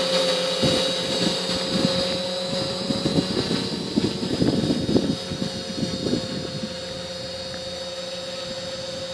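Quadcopter's electric motors and propellers whining steadily as it hovers on its own in GPS position hold, with an uneven rushing in the middle seconds. It grows fainter near the end as the quad drifts away.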